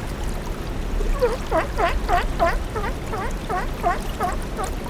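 An animal giving a rapid series of short calls, about three a second, each dipping then rising in pitch, starting about a second in, over a steady low rumbling hiss.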